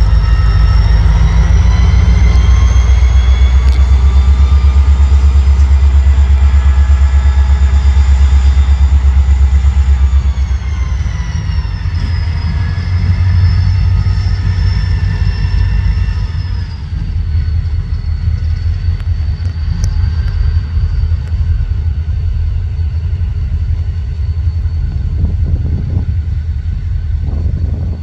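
EMD SD40-2 diesel-electric locomotive's turbocharged 16-cylinder engine working under load: a deep pulsing rumble with a high turbocharger whine that climbs in the first few seconds, then falls in pitch in two steps, about ten and seventeen seconds in, as the sound eases. A few thumps near the end.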